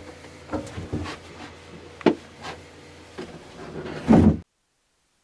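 A series of short knocks and thumps over a faint low hum, about six in all, with the loudest just after four seconds in. The sound then cuts off abruptly to silence.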